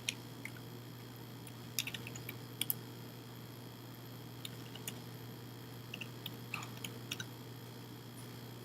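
Faint, irregular computer keyboard key clicks in small scattered groups while code is typed, over a steady low hum.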